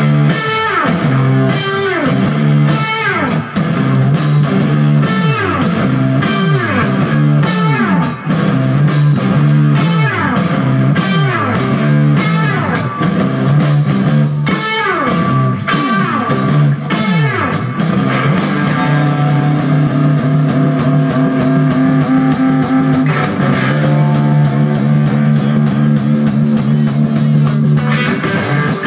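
Live rock band playing amplified electric guitars and bass. Notes slide down in pitch again and again, then the music settles into long held chords about two-thirds of the way through.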